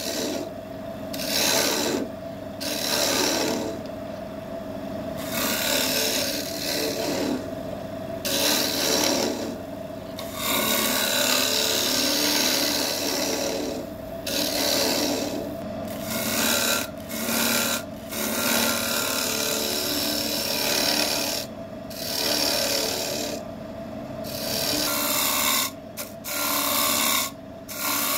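Wood lathe running with a steady hum while a turning tool works the spinning wood in short passes that start and stop every second or two.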